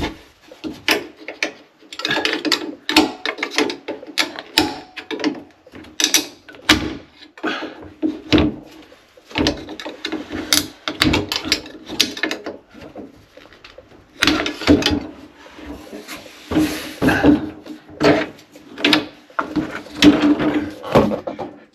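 A bifold closet door being worked off its overhead track: repeated knocks, clicks and scraping as the top pivot is pried loose and the door panels are shifted and lifted out.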